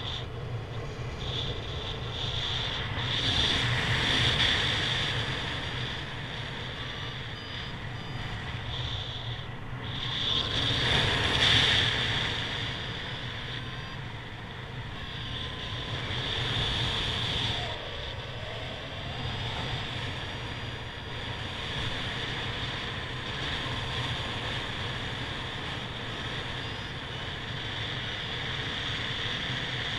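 Rushing wind on the microphone of a camera carried in paragliding flight, a steady noise that swells twice, about four seconds in and again around eleven to twelve seconds in.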